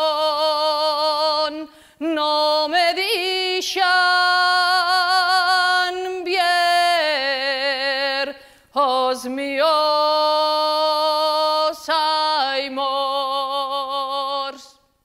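A woman singing unaccompanied, a slow song of long held notes with wide vibrato, in several phrases with short breaks between them. The voice stops shortly before the end.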